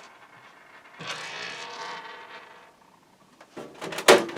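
A PC case and its power supply being handled: a rubbing scrape about a second in, then a few sharp clunks near the end, the loudest about four seconds in.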